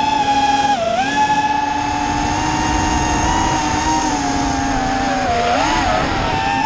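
Small multirotor drone's motors and propellers whining steadily, heard from the drone itself; the pitch dips briefly about a second in and wavers again near the end.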